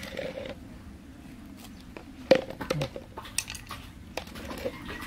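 Handling noise from tying a rolled bundle of taro leaves with straw rope on a plastic sheet: scattered clicks and soft rustles, the sharpest click a little over two seconds in.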